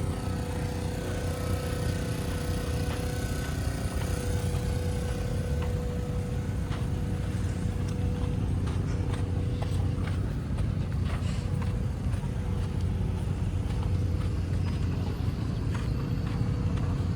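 An engine running steadily with a low drone, joined by a steady higher tone that fades out about a third of the way through.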